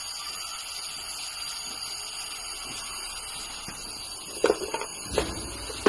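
Salvaged Jiaxipera refrigerator compressor running as an air pump, with a steady rushing hiss of air. A few sharp clicks and knocks come about four and a half seconds in.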